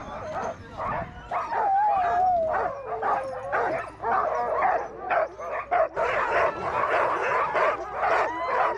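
A team of harnessed sled dogs barking and yipping excitedly, many overlapping barks in quick succession. About two seconds in, one dog gives a wavering whine-howl that falls in pitch.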